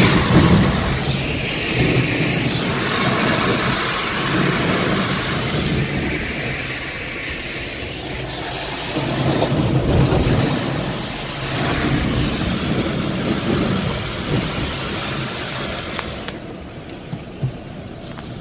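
Steady road and rain noise inside a car driving on wet roads in mild rain, with low rumbling swells now and then; the noise drops off markedly near the end.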